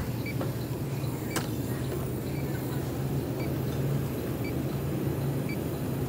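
Steady low hum of supermarket freezer display cases and air handling, with a faint short beep about once a second from a handheld electronic refrigerant leak detector idling at zero reading, and a single click about a second and a half in.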